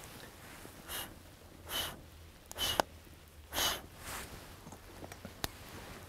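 A person blowing short puffs of breath through hands cupped in a diamond shape at the mouth, to fan a campfire. There are about four hissing puffs, roughly a second apart.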